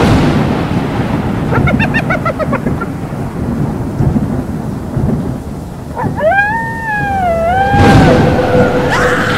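Halloween sound effects: thunder rumbling over steady rain, with a loud thunder crash about eight seconds in. A brief run of short high cries comes about two seconds in, and a long wavering howl that rises and falls follows from about six seconds.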